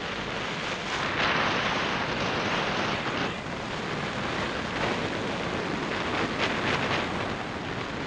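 Rushing airflow over a hang glider's wing-mounted camera in flight: loud, steady wind noise that swells and eases.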